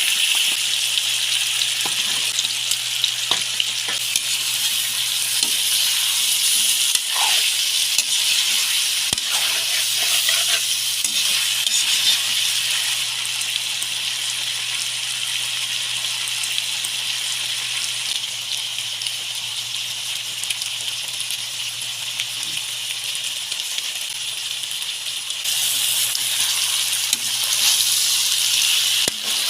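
Food sizzling as it fries in a pan, with scattered clicks of a utensil stirring it. The sizzle grows louder near the end.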